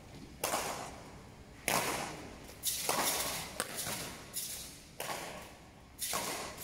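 Badminton rally: rackets hitting the shuttlecock back and forth, about seven sharp hits roughly a second apart, each ringing out in the echo of a large hall.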